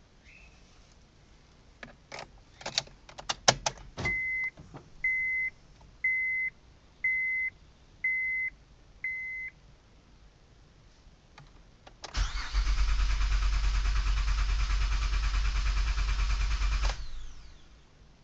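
2008 Honda Odyssey: a few clicks, six dashboard chime beeps about a second apart, then the engine cranks loudly for about five seconds and stops without catching, the van failing to start.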